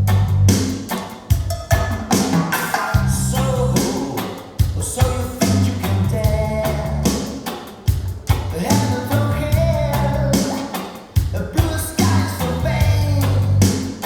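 Recorded song played back through Børresen Acoustics loudspeakers driven by Gryphon Audio electronics: a drum beat, a strong bass line and a singing voice.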